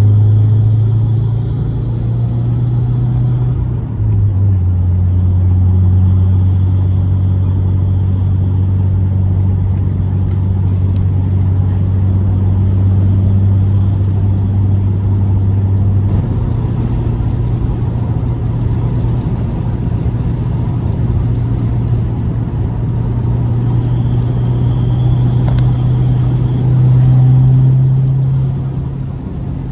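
Subaru WRX's turbocharged flat-four engine and road noise while the car is being driven at cruise: a steady low drone whose pitch steps down about four seconds in, back up around sixteen seconds, and swells louder near the end.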